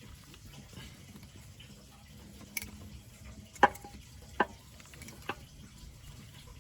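Four short, sharp clicks, the loudest about three and a half seconds in, as the oil filter housing cap is handled while its freshly oiled O-ring is seated, over a low steady background hum.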